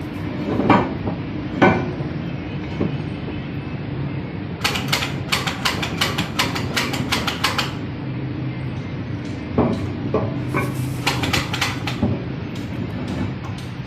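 Metal clanking and knocking from work on a truck's rear axle housing, with two runs of rapid sharp metallic clicks, one near the middle and one later, over a steady low machine hum.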